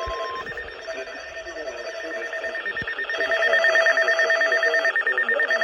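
Electronic weather-alert alarm sounding a rapid, continuous pulsing beep, with a lower tone that cuts in and out. It gets louder about three seconds in.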